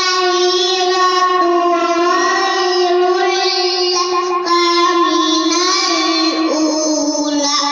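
A young girl singing solo, holding long notes and moving between them with quick ornamented turns.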